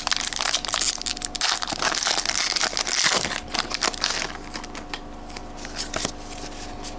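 Foil wrapper of a Pokémon trading card booster pack being torn open and crumpled in the hands, a dense crinkling and crackling that dies down about four seconds in.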